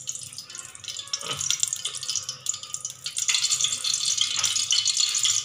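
Refined vegetable oil crackling and sizzling as it heats in a hot aluminium pressure cooker. The crackle grows denser and louder about three seconds in.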